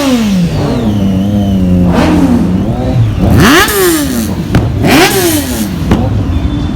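Kawasaki Ninja superbike engine revving: the pitch falls back at the start, holds steady, then two sharp throttle blips about a second and a half apart, each rising and falling quickly.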